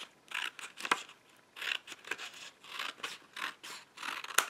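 Scissors snipping through a paper book page in a run of short cuts, with a sharp click near the end.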